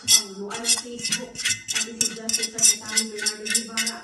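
Background television broadcast audio: a news music bed with two steady held tones under a quick, regular beat.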